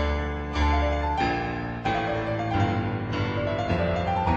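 Background music on piano: a steady run of notes changing about every half second.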